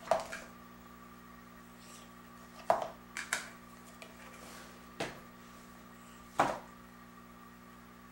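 Plastic Play-Doh tubs and lids knocking and clacking on a wooden table as they are handled and the lid is pressed back on, about five sharp knocks: one at the start, a quick group around three seconds in, and others near five and six and a half seconds.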